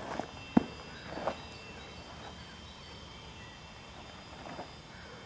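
Footfalls and stamps of a bajiquan form on dirt and grass: a few steps in the first second and a half, the sharpest thud about half a second in, then a couple of faint steps near the end, over a faint steady hiss.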